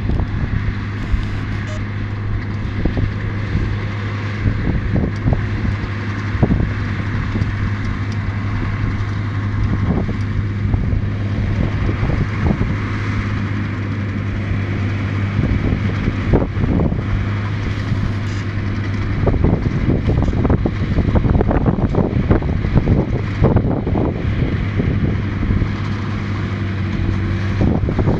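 Tractor engine running steadily at working speed while it pulls a round baler through straw, with gusts of wind buffeting the microphone.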